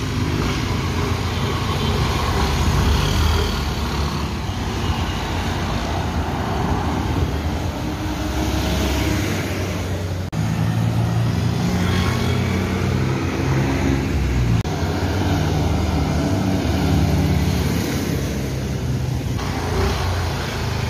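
Yamaha Mio i125 scooter's single-cylinder engine running, freshly rebuilt with a new piston and cylinder block, with road traffic passing.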